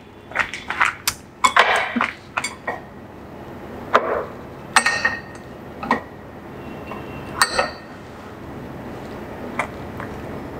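Chopsticks clicking and clinking against ceramic plates and bowls while food is gathered into a rice-paper roll, with soft handling rustles between. Two sharper clinks ring briefly, about five and seven and a half seconds in.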